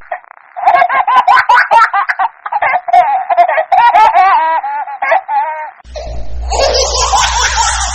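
A baby laughing in quick, repeated high-pitched giggles. About six seconds in it cuts abruptly to a different recording of a child laughing, with a low hum underneath.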